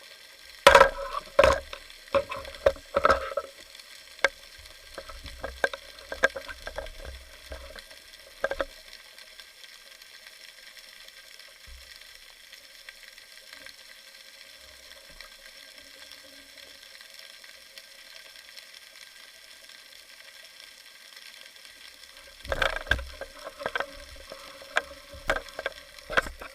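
Underwater crackling and sharp clicks, picked up by a camera beneath the surface. The clicks come in a cluster for the first eight seconds or so, stop for a long stretch of faint steady hiss, and start again a few seconds before the end.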